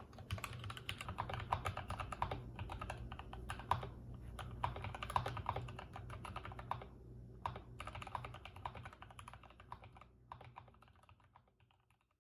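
Typing on a Durgod Hades 68 mechanical keyboard with linear Gateron Yellow switches: a steady run of irregular keystroke clacks that fades out over the last couple of seconds.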